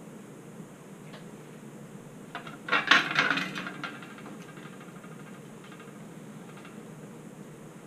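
A pair of metal side cutters set down on the workbench with a brief clattering rattle and a short metallic ring, about three seconds in. A low steady hum underneath.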